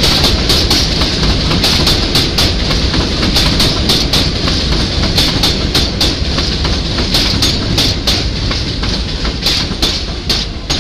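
R62 subway train running along the elevated track past the platform, with a steady rumble and hiss and many irregular sharp clicks as the wheels cross rail joints. It grows quieter near the end as the last car comes by.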